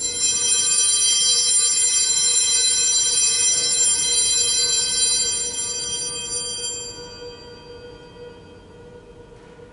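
Altar bell rung at the elevation of the host during the consecration: one sudden strike, then several bright ringing tones that fade away over about seven seconds.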